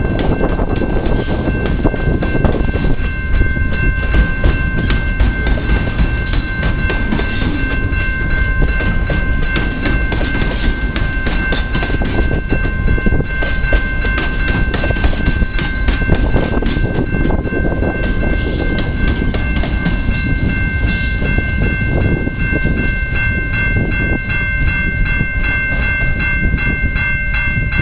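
Freight train boxcars rolling past close by, the wheels clacking rapidly and continuously over the rail joints under a heavy rumble. Several steady high-pitched tones ring above it.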